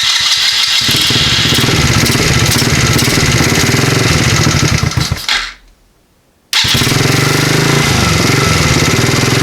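Small Chinese ATV engine running, shut off by its newly wired kill switch about five seconds in and dying away, then firing up again on the new start button about a second later and running.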